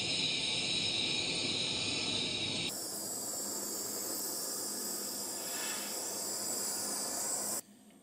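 Kitchen blowtorch flame hissing steadily as it caramelizes the sugar on a crème brûlée. The hiss changes character abruptly about two and a half seconds in and cuts off sharply near the end.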